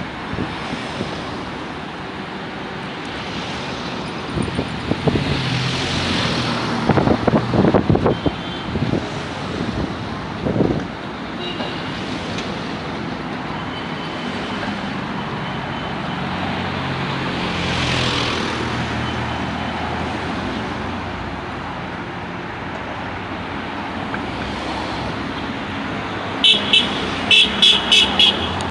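Road traffic running steadily past, with vehicles swelling louder as they go by. A cluster of clattering knocks comes about five to eleven seconds in, and a quick run of short, high beeps near the end.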